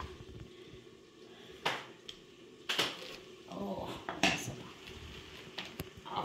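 Kitchen clatter: three sharp knocks a second or so apart, then a few lighter taps near the end, as a heavy cut pumpkin half and utensils knock against a wooden cutting board.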